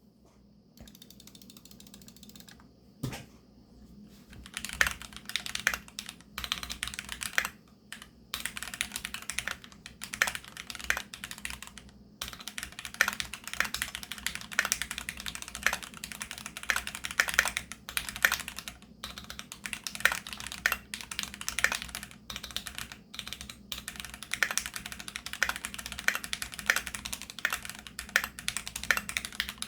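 Typing on a Keychron Q2 aluminium-cased mechanical keyboard with tactile Gateron G Pro Brown switches: a fast, irregular run of key clacks. There is a single knock about three seconds in, typing starts about a second later, and it breaks off briefly twice.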